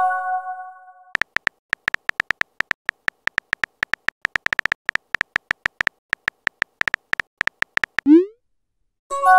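Text-messaging sound effects. A short chime of several steady tones fades out, then rapid keyboard tap clicks run for about seven seconds as a message is typed. A quick rising swoop sounds at about eight seconds, and the chime starts again just before the end.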